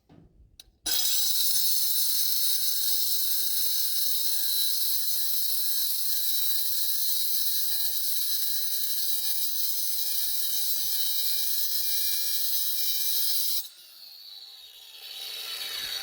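Grinder with a diamond cutoff blade cutting through a small piece of metal: a loud, steady, high-pitched grinding screech starting about a second in and lasting some thirteen seconds. Near the end the cut stops and the blade's whine falls in pitch as the grinder spins down.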